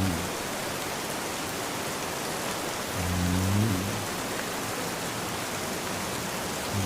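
Steady rain with a man snoring in deep sleep over it: a low snore about every three and a half seconds, one full snore about three seconds in and the next starting at the end.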